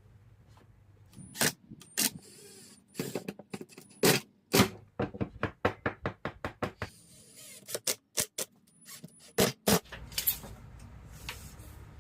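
Sharp knocks and taps on wood during woodworking: scattered loud strikes, with a quick run of lighter taps at about four or five a second in the middle.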